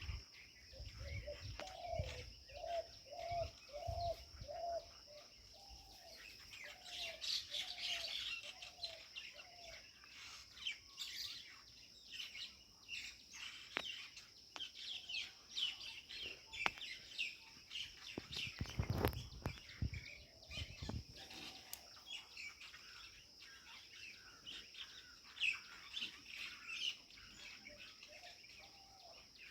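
Birds chirping and calling around a pipal tree, with a run of about a dozen evenly spaced lower call notes in the first ten seconds and many quick high chirps. A steady high drone runs underneath, and there is a brief low rumble a little after the middle.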